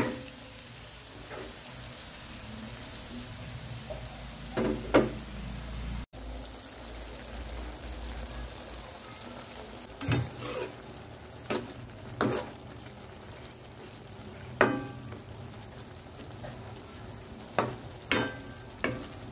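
Duck blood stew simmering in a metal pan with a soft, steady sizzle. Now and then a utensil scrapes or knocks against the pan in short, sharp strokes, several of them in the second half.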